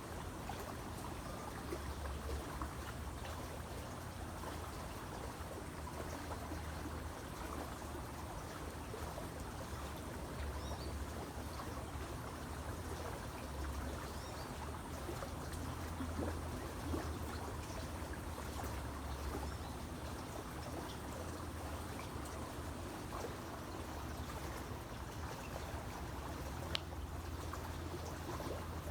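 Creek water trickling and babbling steadily, with a low rumble that swells and fades underneath and one sharp tick near the end.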